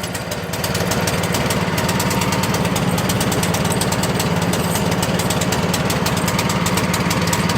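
Small snowblower engine running steadily with a rapid, uneven putter and no throttle change. It does not sound very good, which the owner puts down to running without the choke and starving for gas.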